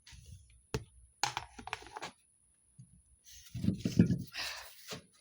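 Small objects being handled and set back in place on a shelf: a sharp click, then scattered light knocks, clicks and rustling, with a brief lull in the middle.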